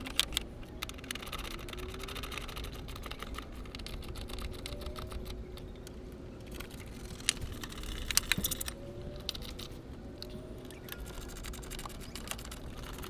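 Hand ratchet clicking in short runs as the battery tray's hold-down nuts are run down and tightened.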